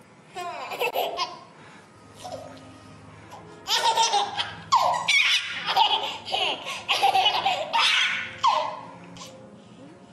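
Baby laughing at a dog: a short laugh about half a second in, then a long run of belly laughs in repeated bursts from about four seconds in until shortly before the end.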